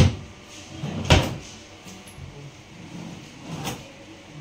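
Household knocks and thuds: a sharp knock at the very start, another about a second in, and a softer one near the end.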